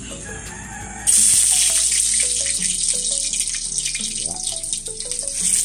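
Garlic sizzling as it hits hot cooking oil in a wok, starting suddenly about a second in and crackling on steadily. Background music plays underneath.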